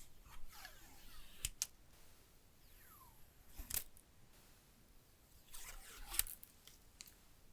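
Handling noises from unboxing a Samsung Galaxy A54 5G phone: soft rustling of packaging, a short falling squeak about three seconds in, and several sharp clicks and taps, the loudest about six seconds in.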